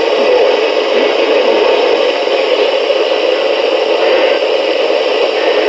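Steady, loud hiss of radio static from a weather radio receiver, with no broadcast voice or alert tone.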